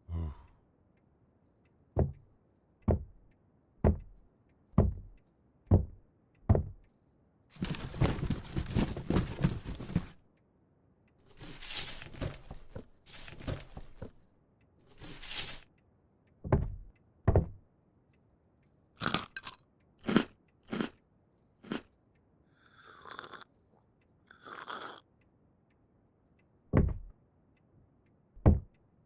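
A sequence of layered sound effects. It opens with dull thumps about a second apart, like footsteps, then about two and a half seconds of dense crunching. Several shorter rustling bursts, a few sharp clicks and more spaced thumps follow.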